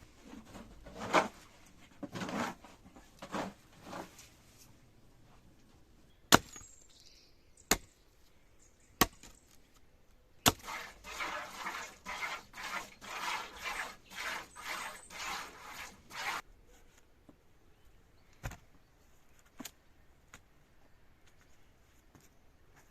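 Hand work with wood: a few sharp wooden knocks about a second apart. Around the middle comes a run of rhythmic rustling and scraping that stops suddenly. Near the end there are a couple of fainter knocks.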